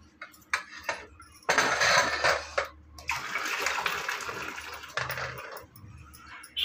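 Cooking water poured off boiled cluster figs from a pressure cooker through a metal mesh strainer, splashing in two pours with a short break between them, after a couple of light clinks.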